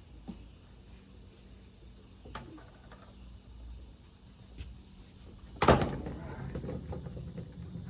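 A few light clicks, then a loud bang about six seconds in followed by a couple of seconds of clattering and rattling.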